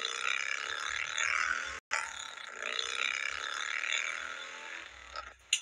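Motorcycle engine revving up and down in two long swells, heard thin with little bass; it cuts out for an instant just under two seconds in and fades near the end.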